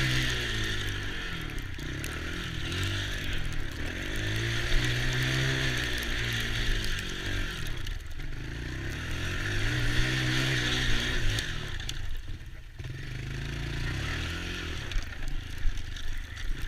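Small ATV engine running, its pitch rising and falling several times as the throttle is opened and eased off.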